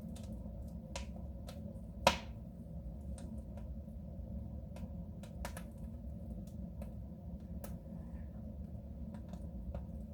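Wood fire crackling inside a soapstone stove: irregular small pops and snaps, with one much louder pop about two seconds in.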